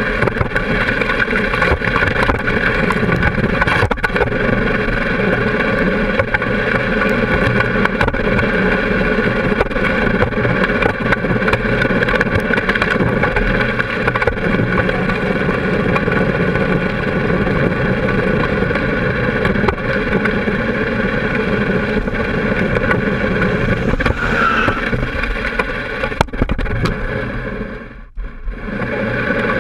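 Can-Am Spyder roadster's engine running steadily while riding, with wind and road noise on the low front-mounted camera. The sound drops away sharply for a moment near the end.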